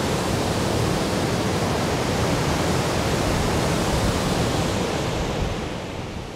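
Waterfall rushing: a steady, even noise of falling water that fades away near the end.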